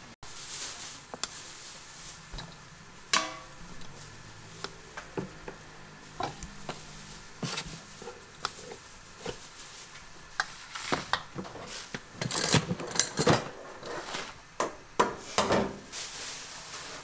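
Cooked rice being scooped and turned with a rice paddle in a stainless steel colander: irregular scrapes and clinks of the paddle against the metal bowl, coming thicker and louder in the second half.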